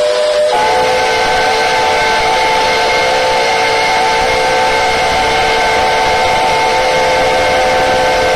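Steam locomotive whistles of P36 engines blowing a long, loud blast over a hiss of steam. A second whistle with a higher chord joins about half a second in, and both hold steady together.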